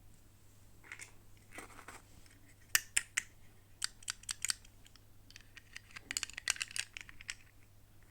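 Hands unpacking a toy doll's packaging: a short rustle, then a string of sharp separate clicks, then a quick cluster of clicks and crinkles.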